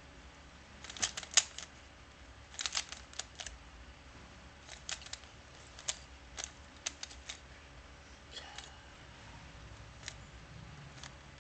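3x3 Rubik's cube being turned by hand: the plastic layers click in quick little runs of a few turns, with short pauses between. The loudest run comes about a second in.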